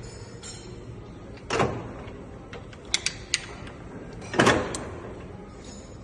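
Two heavy mechanical clunks and a few sharp clicks from a 6N13P vertical milling machine, over a steady low hum.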